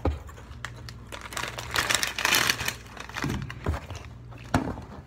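Crinkling and rustling of something being handled close to the phone, with a knock right at the start and a sharp click about four and a half seconds in.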